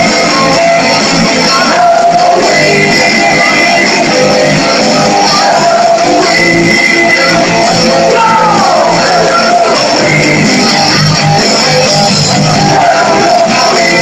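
Loud rock music led by guitar.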